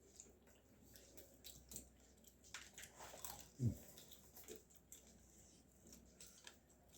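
Faint close-up eating sounds: a person chewing and biting food, with scattered small clicks and crunches. About halfway through comes one short, low sound that falls in pitch.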